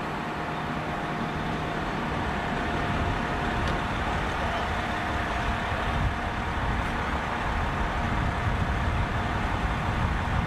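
Heavy vehicle engines idling steadily: a low rumble with a faint steady hum over it, growing slightly louder a couple of seconds in.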